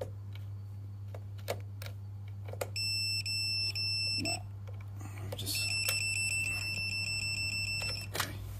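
Two-pole voltage tester beeping twice, a short steady beep and then a longer one, as its probes touch the cylinder thermostat's earth and satisfied terminals: the beep shows voltage on the satisfied terminal, so the thermostat is satisfied. Light clicks of the probes against the terminals.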